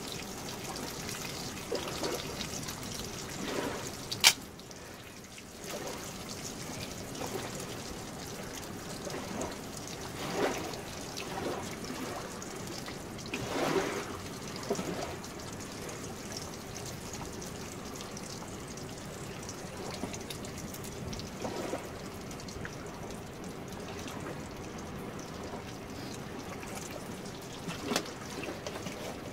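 River water running steadily, with a sharp snap about four seconds in and a few softer knocks from sticks being handled at a small campfire.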